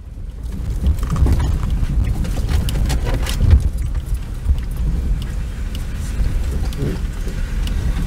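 Truck driving along a rough dirt track: a steady low rumble of engine and tyres, broken by frequent knocks and rattles over the bumps. It fades in over the first second.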